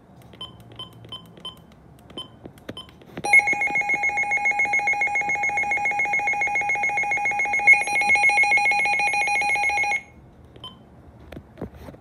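A few short key beeps, then a Midland weather alert radio sounds its alert siren in test mode: a loud, steady, rapidly pulsing two-pitch alarm tone that runs for about seven seconds and cuts off suddenly.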